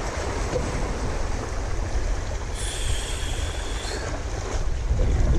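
Small waves washing over jetty rocks with wind buffeting the microphone. Midway a faint high whine sounds for about a second and a half.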